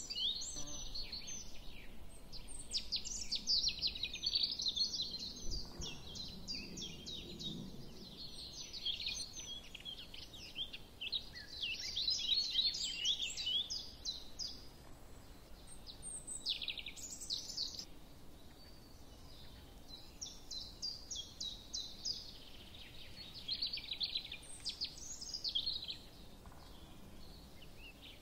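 Small birds chirping in a rapid, high twittering chatter that goes on throughout, with several calls overlapping and rising and falling in loudness.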